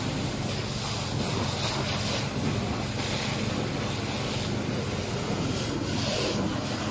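Steady rushing hiss of a fire hose stream spraying water onto a smouldering encampment fire, over a steady low hum.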